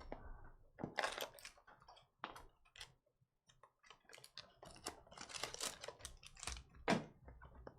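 Trading cards and foil pack wrappers being handled: irregular light clicks and snaps of cards being flicked through, with short crinkling rustles of wrapper, the longest about five to six and a half seconds in.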